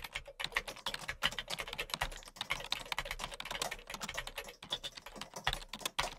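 Computer keyboard being typed on: fast, continuous clicking of keystrokes, many a second without a real break.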